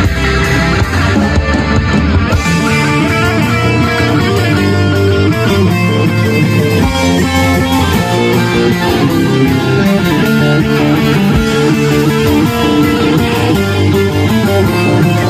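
Live metal band playing: loud distorted electric guitars over bass, dense and continuous.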